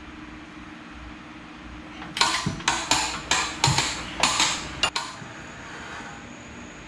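A hand wrench worked in quick strokes on a suspension bolt: about eight bursts of metallic clicking, roughly three a second, starting about two seconds in and stopping near five seconds. A low steady hum runs underneath.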